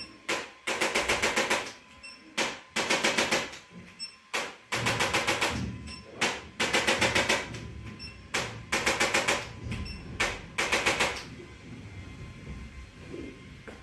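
A handheld percussive treatment device tapping rapidly on the body, about ten taps a second, in bursts of about a second with short pauses between them, seven times over.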